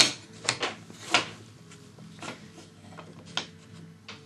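Light clicks and knocks of jigsaw puzzle pieces being handled and tapped against the puzzle board, about six spread over a few seconds, with a faint steady hum underneath.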